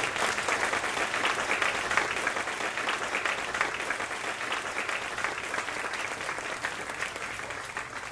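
Audience applauding, the clapping slowly growing quieter toward the end.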